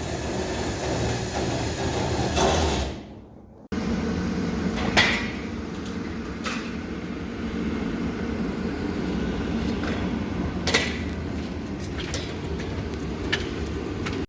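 A steady low hum of machinery, broken by a short fade and an abrupt cut about three and a half seconds in, then carrying on with a few sharp knocks.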